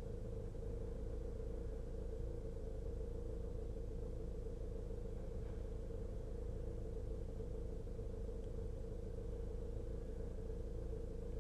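Steady engine drone with a constant low hum and rumble, heard from inside a vehicle's cab.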